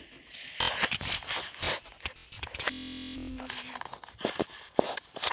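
Scraping and rustling from a handheld phone being gripped and moved, fingers rubbing close to its microphone, with a brief steady buzzing glitch about halfway through.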